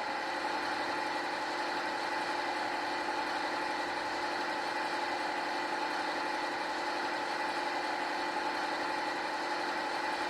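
Sampled sound of a Class 55 Deltic's Napier Deltic two-stroke diesel engines idling steadily, played by a DCC sound decoder through a small model-locomotive speaker.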